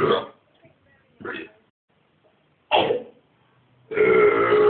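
A person burping repeatedly: a burp trailing off at the start, a short fainter one about a second in, another near three seconds, and a long drawn-out burp starting about four seconds in.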